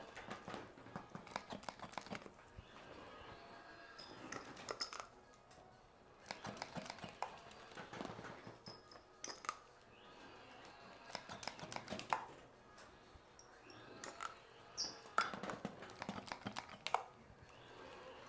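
Sports massage: hands rubbing and sliding over skin in repeated strokes, each pass a short run of soft clicks and friction noise, coming every two to three seconds.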